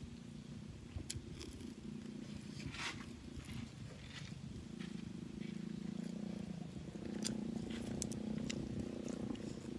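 Close-up eating sounds: chewing and lip-smacking on grilled meat, with scattered sharp crunches and clicks, the clearest about three seconds in and again near the end, over a low steady hum that grows a little louder partway through.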